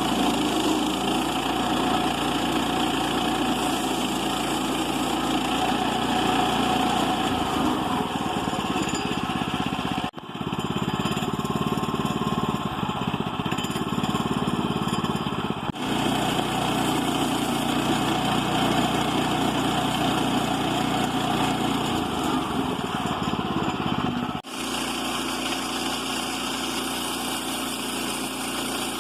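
Small gasoline engine of a Woodland Mills portable sawmill running steadily. The sound shifts abruptly three times, about a third of the way in, around the middle and near the end.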